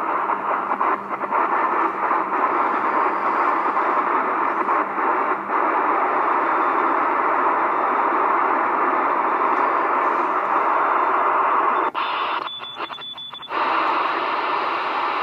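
Radio receiver hiss and static, with a burst of very fast Morse code (CW) about twelve seconds in: a high tone keyed on and off in quick dots and dashes, too fast for a human hand, which the listener takes to be machine-sent.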